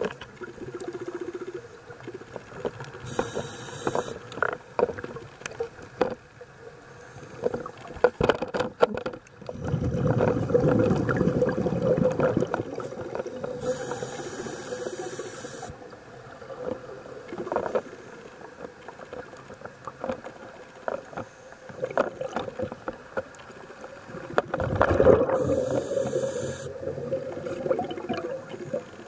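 Scuba diver breathing through a regulator underwater: short hissing inhales and long rumbling bursts of exhaled bubbles, twice loudest, with scattered small clicks and knocks.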